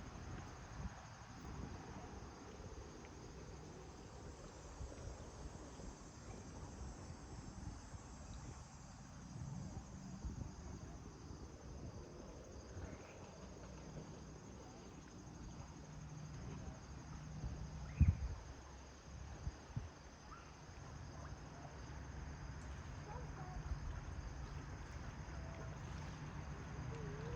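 Outdoor ambience with a steady high-pitched insect chorus, typical of crickets, over a low rumble. There is a single sharp knock about two-thirds of the way through, and a few faint short chirps near the end.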